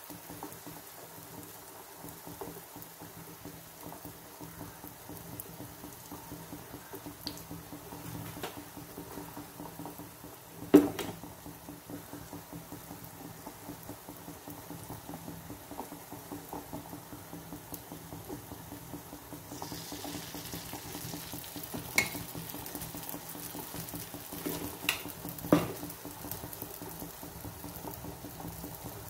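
Unniyappam batter frying in hot oil in a metal pan: a steady sizzle. A few sharp knocks cut through it, the loudest about eleven seconds in and two more in the last third.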